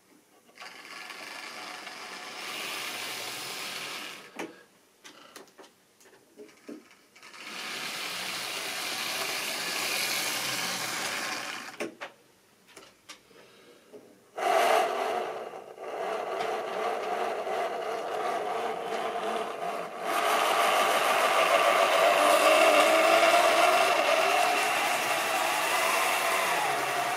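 Model railway train running on the track: a small electric motor whines and the wheels rattle over the rails. It runs in two short stretches that start and stop, with clicks between, then from about halfway it runs continuously and gets louder as the coaches pass close by.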